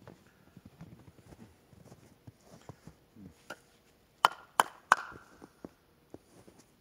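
Pieces of split firewood knocked together: three sharp wooden clacks with a short ringing tone, about a third of a second apart, a little over four seconds in. Before them come soft knocks and rustles of the wood being handled.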